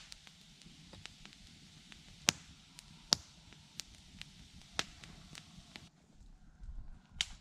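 Wood campfire crackling: scattered, irregular sharp pops over a soft hiss.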